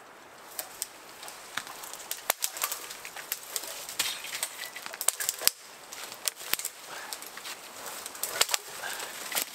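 Irregular snapping and cracking of dry wood and twigs, with rustling in branches, as a thin tree is worked by hand.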